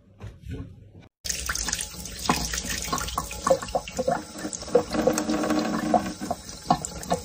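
Water running from a faucet in a thin stream into a sink, starting suddenly about a second in and continuing steadily.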